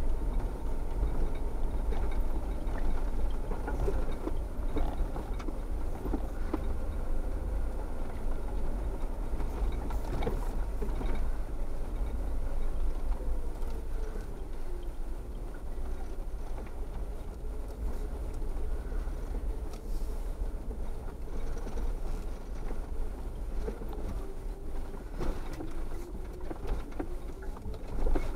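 Off-road vehicle driving slowly over a rough gravel trail: a steady engine note with a low rumble and the odd knock from the surface. The engine note dips about halfway through and rises again.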